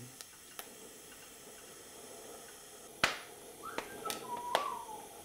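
TIG welding a small stainless tube onto a pipe: a faint steady hiss of the arc and shielding gas, then a sharp click about three seconds in, followed by several lighter clicks and a short whistle-like tone.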